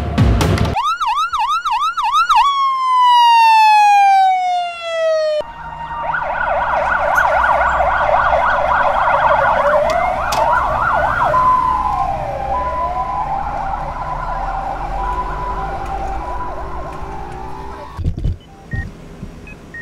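Emergency-vehicle siren sound effects. First comes a fast yelping warble of about four cycles a second, then a long falling tone, then several sirens wailing over one another, rising and falling, until they cut off about 18 seconds in.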